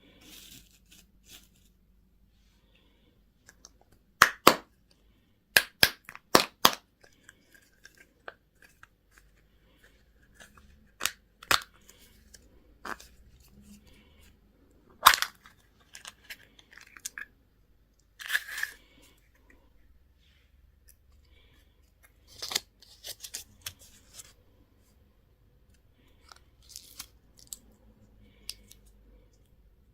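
Candy and toy packaging being opened by hand: sharp plastic snaps and cracks with some tearing and crinkling. They come in scattered bursts with pauses between, a quick run of snaps a few seconds in and the loudest single crack about halfway.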